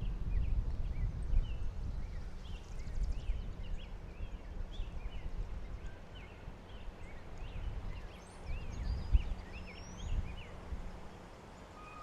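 Outdoor ambience of many small birds chirping and singing in short, quick notes, over a low rumble of wind or handling noise on the microphone.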